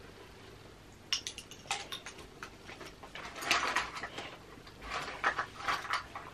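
Makeup products being rummaged through and picked up: irregular light clicks, knocks and rustling, starting about a second in.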